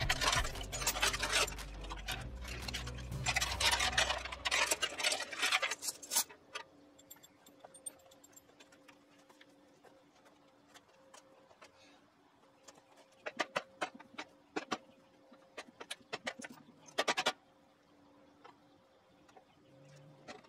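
Metal parts of a lathe's overhead drive and its hanging chain being handled. A few seconds of scraping and rubbing runs over a low hum that stops about five seconds in, then it goes quiet except for scattered light clicks and clinks.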